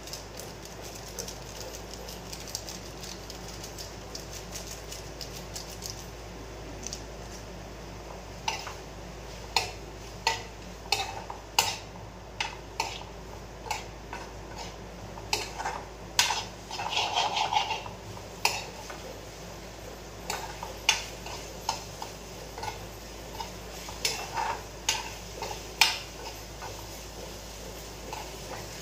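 A metal spoon stirs pasta in a wok-style pan on a gas stove, clinking and scraping against the pan's sides in irregular knocks. The knocks start about a third of the way in and come thickest near the middle, over a steady background hiss.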